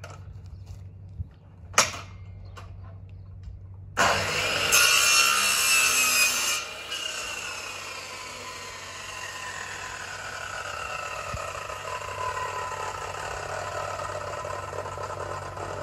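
Electric drop saw starting about four seconds in and cutting through wooden frame moulding for a couple of seconds, then its blade spinning down with a slowly falling whine. A sharp knock comes just before it starts.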